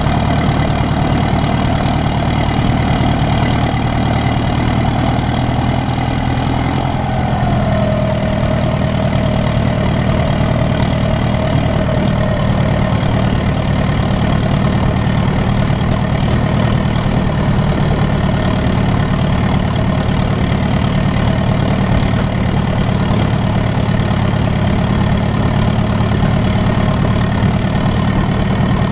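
IHC 745XLA tractor's four-cylinder diesel running under way with its muffler removed, the exhaust coming straight out of the bare stainless-steel pipe. The engine note is loud and steady, with a higher whine that dips slightly in pitch about seven seconds in.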